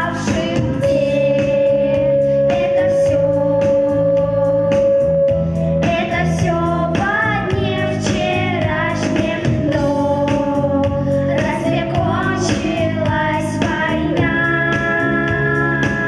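A female voice singing a slow song with sustained notes over instrumental accompaniment.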